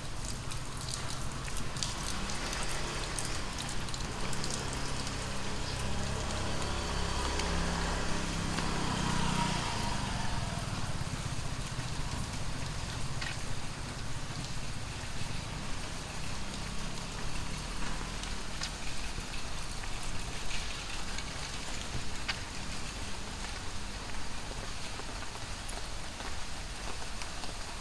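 Heavy tropical rain falling and pattering steadily on surfaces, with sharp drips here and there. A motor vehicle's low engine hum passes through during the first ten seconds or so, then fades.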